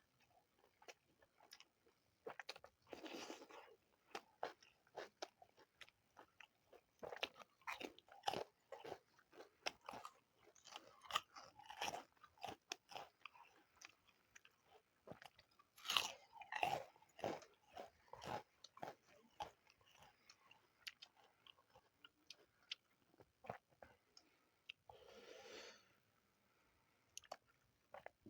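Close-miked eating: irregular wet chewing and crisp crunching bites of Indian home food, with louder crunches coming in short bursts every few seconds.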